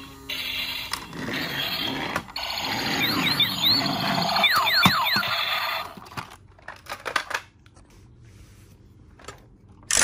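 Battery-operated transforming robot toy car playing tinny electronic sound effects with several quick falling swoops, cutting off about six seconds in. A few light plastic clicks follow as the toy is handled.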